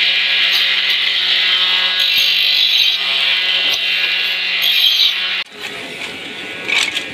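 Wooden strip ground against a motor-driven abrasive disc: a loud, steady grinding hiss over the motor's low hum. It stops abruptly about five and a half seconds in, leaving a quieter sound with a brief knock near the end.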